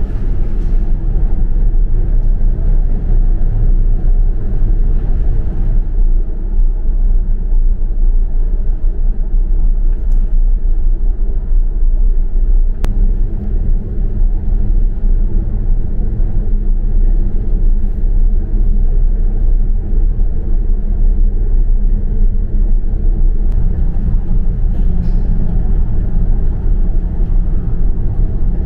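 Steady low rumble of a ferry's engines heard from inside the ship, a deep drone with faint steady hum tones riding on it.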